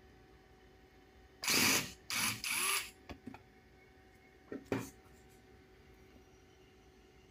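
Handheld electric screwdriver running in short bursts on the small screws of an RC car chassis: three quick runs about a second and a half in, a few light clicks, then two briefer runs near the middle.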